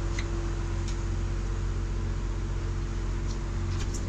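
Fishing boat's engine running steadily, a low hum with a constant tone over it, and a couple of faint clicks.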